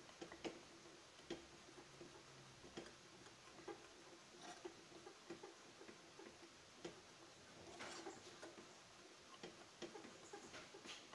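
Faint, irregular clicks and scrapes of a wire whisk knocking against the inside of a small saucepan while a milk-and-cornstarch cream filling is stirred over low heat, a few clicks a second, busier about eight seconds in.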